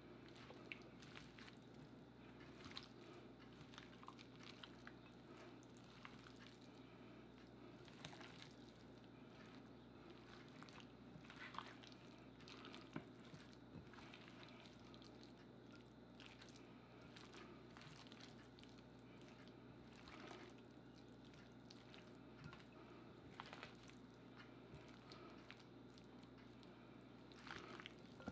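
Faint wet squelching and soft irregular clicks of bare hands mixing chicken strips into a sour-cream marinade in a glass bowl, over a steady low hum.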